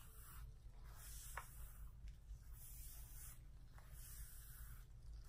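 Faint, repeated swishing of deep conditioner being worked through wet curly hair, with a small click about a second and a half in.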